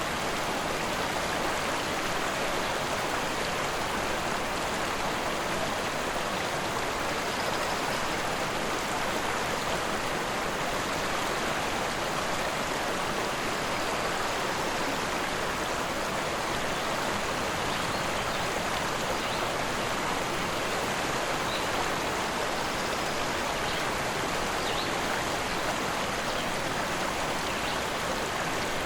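A rushing forest river, its water running in a steady, unbroken rush.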